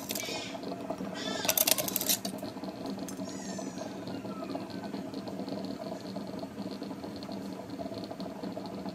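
Steady mechanical hum of a small motor, with a short burst of clattering about a second and a half in.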